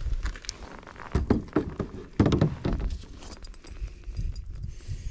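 Irregular knocks and thumps as a landing net holding a freshly caught fish is swung aboard a plastic fishing kayak, the net frame and the fish bumping against the hull. The loudest thumps come about a second in and again a little after two seconds.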